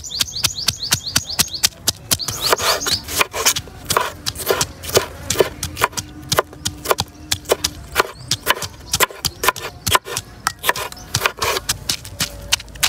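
Rapid, irregular sharp knocks and clicks, several a second, with a bird's chirping trills in the first few seconds.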